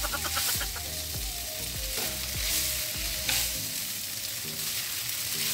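Rice vermicelli sizzling in a hot frying pan as it is stir-fried and lifted with chopsticks, a steady frying hiss with a couple of sharp clicks about two and three seconds in.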